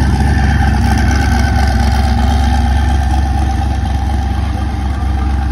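Car engine and exhaust running steadily at low speed as the car rolls slowly past: a loud deep drone with a steady higher whine above it.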